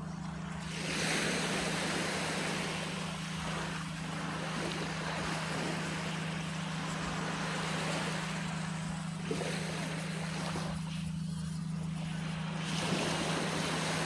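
Small waves breaking and washing up a sandy beach, the surf swelling about a second in and again near the end, over a steady low hum.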